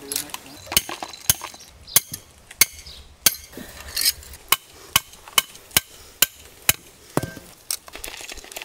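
A steel hammer strikes the top of a rebar trap stake again and again, driving it into the ground. There are about fifteen sharp metallic blows, a little under two a second, and one rings briefly about seven seconds in.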